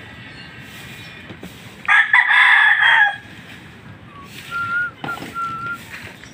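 A rooster crowing once, a loud call a little over a second long about two seconds in, followed by a couple of faint short high whistles.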